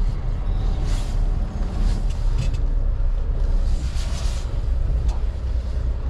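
Semi truck's diesel engine running steadily at low speed as the truck and trailer creep around a lot, with a couple of short hisses about a second in and around four seconds in.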